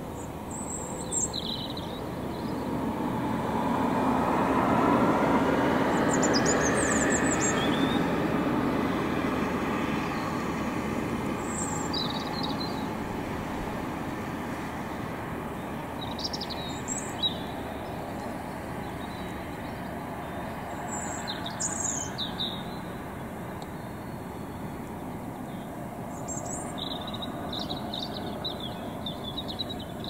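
Songbirds singing short, high, scattered phrases over the steady hum of suburban road traffic. A vehicle passes about four to eight seconds in, swelling to the loudest point and then fading slowly; the birdsong grows busier near the end.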